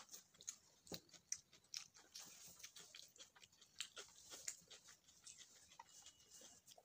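Quiet close-up chewing and mouth smacks of someone eating rice by hand: many short clicks at an uneven pace.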